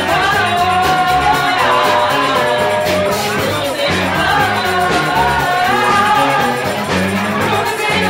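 Live band playing with a lead singer, the sung melody held over bass and drums.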